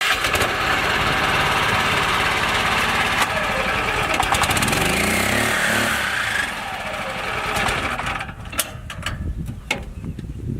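Engine running steadily, its pitch dipping and rising again about five seconds in, then quieter from about eight seconds with scattered sharp clicks and knocks.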